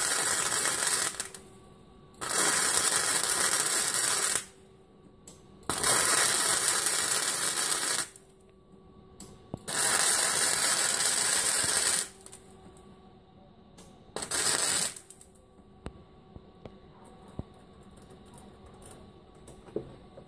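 MIG welder arc crackling and hissing in five runs of about two seconds each with short pauses between, the last run brief, then stopping about 15 seconds in. It is welding up a crack in a Model T's frame cross member.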